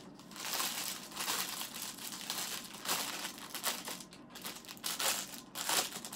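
Clear plastic packaging bag crinkling and rustling irregularly as it is handled and pulled open.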